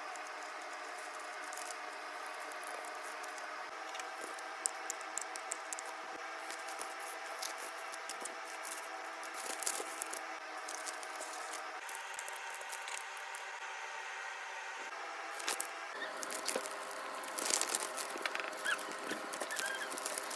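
Paper and thin clear plastic rustling and crinkling under hands folding and handling a paper craft, in scattered clicks and rustles over a steady background hum. The crinkling gets busier near the end.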